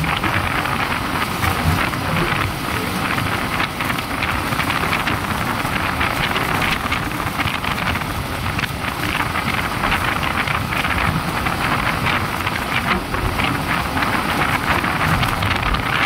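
Motorcycle riding at a steady speed: wind rushing over the microphone mixed with engine and tyre noise, constant throughout.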